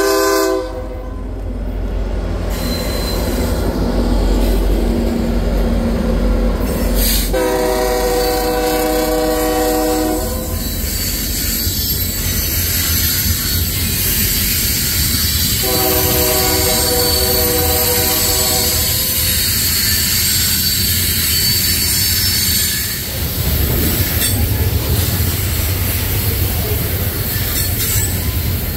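Loaded BNSF coal train passing. The rumble of the lead SD70MAC locomotives gives way to the steady roll of coal hoppers, with high wheel squeal. The locomotive air horn sounds three times: one blast ends just at the start, then two long blasts of about three seconds each, one about seven seconds in and one about sixteen seconds in.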